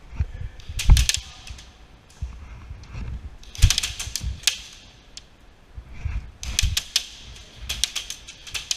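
Airsoft guns firing several short bursts of rapid shots, clusters of sharp clicks a few seconds apart, over low thumps of movement and handling.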